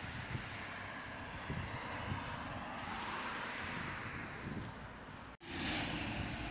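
Road traffic on a highway: tyre and engine noise of passing vehicles swelling and fading, with a sudden brief cut-out about five seconds in.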